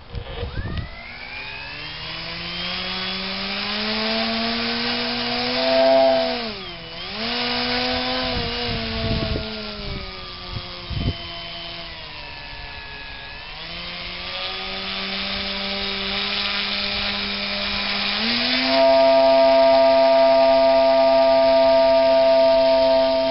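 Nutball RC plane's motor and propeller whining, rising and falling in pitch as the throttle is worked, with a sharp dip about seven seconds in and a few knocks near the middle, then held high and steady for the last few seconds. The plane stays on the grass throughout, the motor too small to lift it off.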